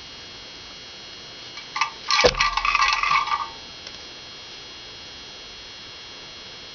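Small metal tools clattering and clinking as they are handled on a workbench, a brief cluster of knocks lasting about a second and a half, about two seconds in. A steady faint hiss runs underneath.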